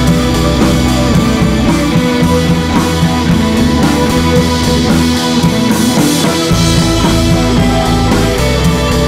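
Background rock music with electric guitar and drum kit, a steady beat throughout.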